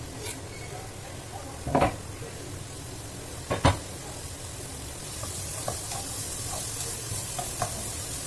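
Chopped onion, garlic and ginger sizzling in hot coconut oil in a wok, the hiss growing louder from about five seconds in as a spatula begins stirring with light scraping clicks. Two sharp knocks, about two and three and a half seconds in, are the loudest sounds.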